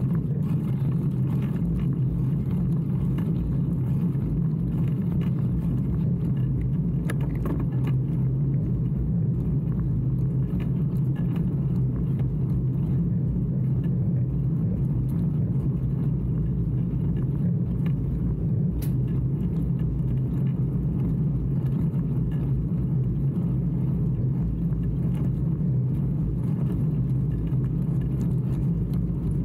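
Steady low rumble of a bicycle riding along a wet asphalt road, heard through the bike-mounted camera: tyre and wind noise, with a few faint clicks.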